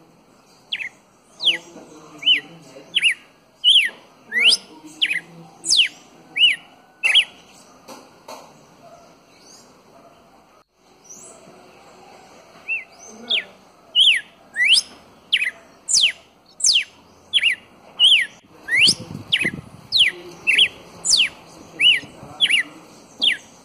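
Red-cowled cardinal singing: a run of loud, sharp whistled notes, each a quick sweep up or down, about two a second, breaking off for a few seconds midway before a second, longer run.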